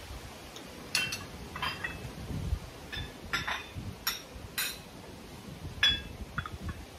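Cups and tableware clinking: a string of about eight light, ringing clinks, one of them louder near the end.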